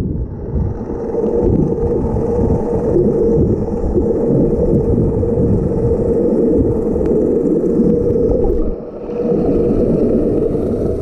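Underwater sound: a steady, muffled drone of boat engines carried through the water, over the low rush of water around the camera. It dips briefly about nine seconds in.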